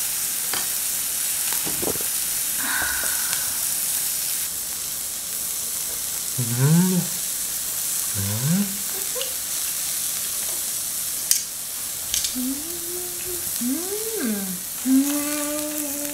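Wagyu beef slices sizzling on a tabletop grill plate over a portable gas burner, a steady hiss. Over it come a few short hummed 'mmm' sounds of someone savouring the meat, the longest near the end.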